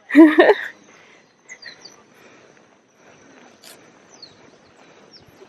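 A brief vocal sound at the start, then faint outdoor ambience: a steady high insect-like tone, and a few short falling bird chirps scattered through the rest.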